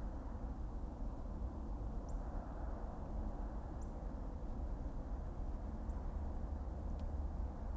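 Steady low rumble of a car's engine and tyres heard from inside the cabin while driving slowly in traffic, with a few faint high chirps now and then.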